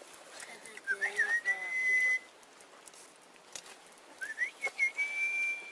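A high whistle sounded twice, each time a quick upward slide into a steady held note about a second long, the second note slightly higher than the first.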